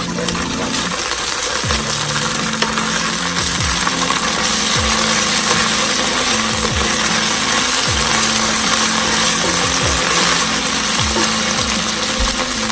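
Chopped onion, capsicum and carrot sizzling in hot oil in a frying pan. Underneath is a low steady hum with a soft low pulse repeating about once a second.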